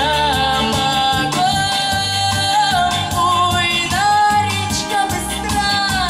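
Playback of a Russian song: long held melody notes that glide up and down between pitches, over a steady repeating bass beat.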